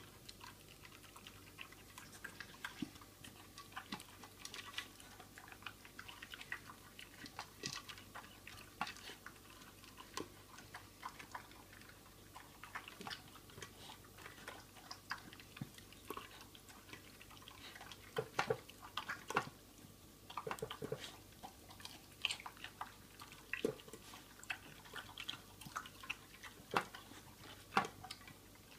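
A beagle eating from a slow-feeder bowl: irregular chewing and crunching with many sharp clicks and taps, busiest about two-thirds of the way through.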